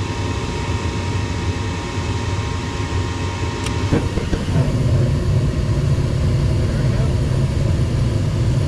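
Goodman gas furnace test-firing with a newly replaced hot surface igniter: a steady motor hum, a click about four seconds in, then a louder low rumble from there on as the next stage of the furnace comes on.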